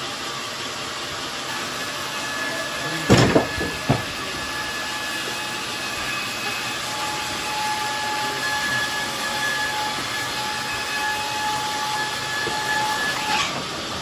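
A heavy teak log lands with a loud thud on a band sawmill's carriage about three seconds in, followed by a smaller knock, over steady machinery hiss. A thin steady whine comes and goes through the middle.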